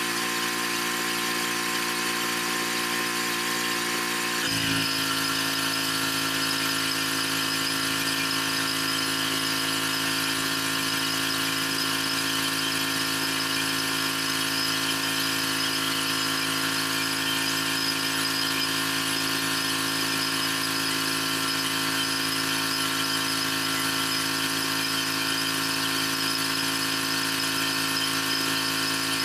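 Pressure washer running steadily, driving a rotary surface cleaner over wet pavers: a constant machine whine under a hiss of spraying water. The tone of the machine shifts once, about four and a half seconds in, then holds steady.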